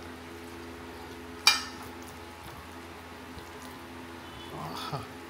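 Quiet sounds of a meal eaten by hand from a plate, with one sharp clink about a second and a half in, over a steady low hum.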